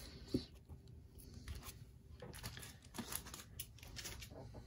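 Faint crinkling and rustling of a comic book in its plastic sleeve being handled and set upright, with a few light taps.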